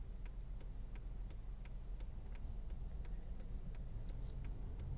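Car turn-signal indicator clicking steadily, about three clicks a second, over a low steady hum of the running car.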